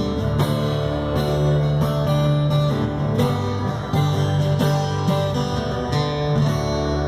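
Live band playing the instrumental close of a slow song: guitar strummed in a steady rhythm over a held low note.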